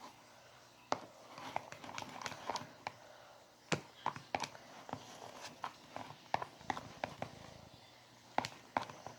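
A utensil tapping and clicking against a container while stirring a mix of glue, shaving cream and lotion for slime. The taps come irregularly, a few a second, and are fairly quiet.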